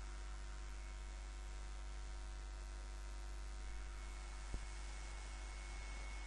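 Steady low electrical mains hum with faint hiss from the recording setup, and a single sharp click about four and a half seconds in.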